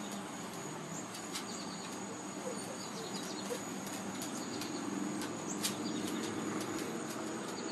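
Outdoor ambience: a steady high insect drone with a few faint bird chirps and scattered light clicks.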